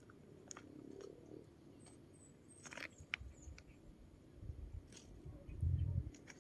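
Footsteps on loose rocks: scattered crunches, clicks and scrapes of stones underfoot. Near the end a short low rumble on the microphone is the loudest sound.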